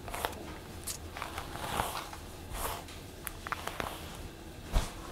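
Rustling and small clicks of things being handled in a small room, with a single thump near the end.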